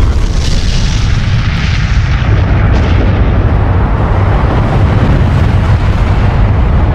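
Nuclear bomb explosion: a loud, continuous low rumble from the blast, with a hissing upper edge that fades over the first few seconds.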